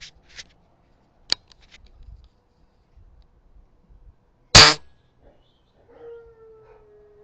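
A sharp click about a second in, then a loud, short report about four and a half seconds in, consistent with an HW97K spring-piston air rifle firing. Near the end, an animal gives one long, steady call that falls slightly in pitch.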